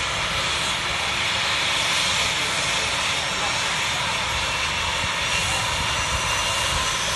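An air ambulance helicopter's turbine engines running steadily on the ground. The sound is a steady rushing noise with a faint high whine over it.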